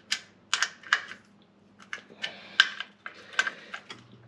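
Socket ratchet clicking in short irregular bursts as the 10 mm nuts on the oil strainer cover plate of a 1971 VW Beetle's air-cooled engine are snugged down by hand in a star pattern, by feel rather than to a torque spec.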